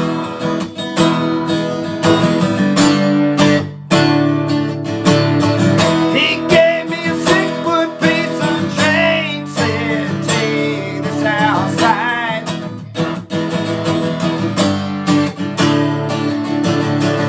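Acoustic guitar strummed steadily, its chords ringing on, with a brief break just before four seconds in.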